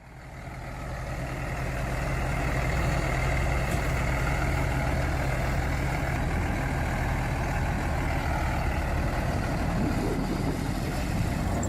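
Heavy vehicle engine running steadily under load, fading in over the first couple of seconds.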